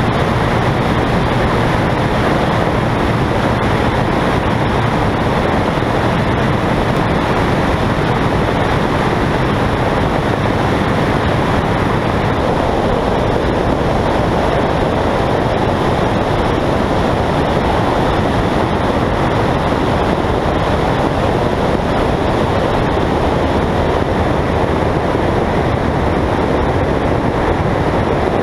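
Light single-engine propeller aircraft in flight, heard from a camera mounted outside the airframe: a steady rush of wind over the microphone with the engine and propeller running beneath it.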